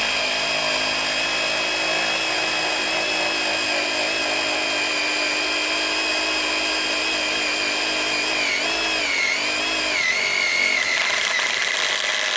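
Metabo HPT WH18DDX compact cordless impact driver running continuously under load, driving a fastener into 1/8-inch steel. A steady high motor whine wavers in pitch a few times past the middle, then drops lower and rougher near the end as the driver bogs under load. The fastener is being driven hard enough to smoke.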